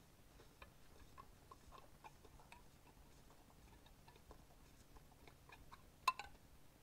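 Faint, irregular small ticks of a speedometer trip knob being turned by hand onto its left-hand-threaded shaft, which is held in locking pliers, with one sharper click about six seconds in.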